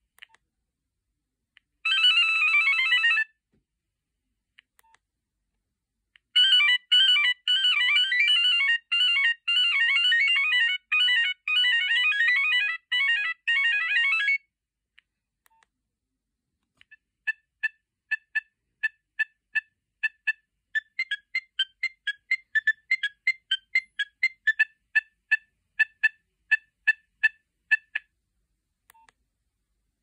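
Nokia 3590 mobile phone playing its preloaded ringtones as previews through its small speaker, one after another with pauses between. About two seconds in there is a short falling run of notes. It is followed by a busy tune of quick notes from about six to fourteen seconds, then a tune of short, separate beeps from about seventeen to twenty-eight seconds.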